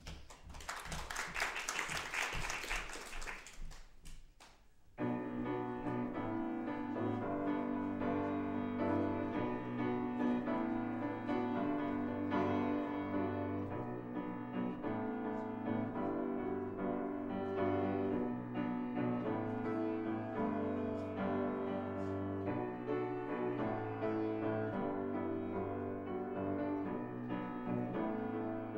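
A few seconds of noise that cuts off abruptly, then from about five seconds in, slow keyboard music with held chords and a steady bass line, piano-like in sound.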